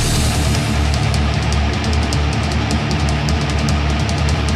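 Speed metal song: distorted electric guitars, bass and drums played fast, with rapid, evenly spaced cymbal strokes over a heavy low end.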